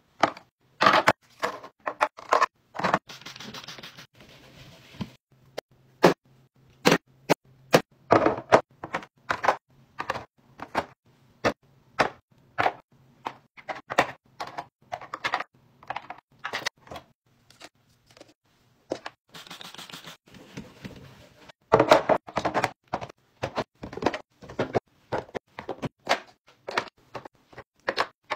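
Plastic bottles, jars, tubes and compacts being set down into clear plastic drawer organizers: many irregular clacks and taps. Twice there is a second or two of soft scraping.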